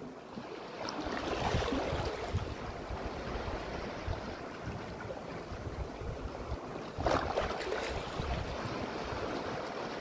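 Sea waves washing in and out among rocks on a rocky shore. The surf swells about a second in, and a louder wave breaks and surges over the rocks about seven seconds in.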